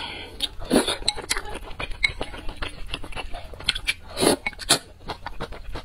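Close-miked eating of noodle soup: wet chewing and mouth noises with many small clicks of metal chopsticks against a stone bowl, and a loud slurp of noodles about four seconds in.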